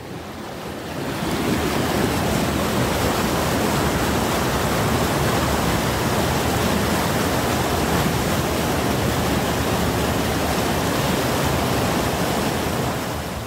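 Muddy floodwater rushing fast through a concrete box culvert, a steady loud rush of water. It grows louder over the first second or two, then holds steady.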